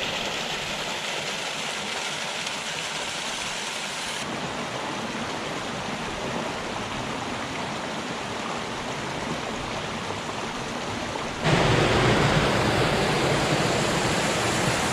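Rain-swollen runoff rushing through a normally dry desert wash, a steady even rush of water. About eleven and a half seconds in it turns suddenly louder and fuller.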